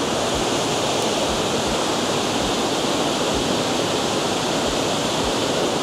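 Water pouring over a spillway: a steady, really loud rush of falling water.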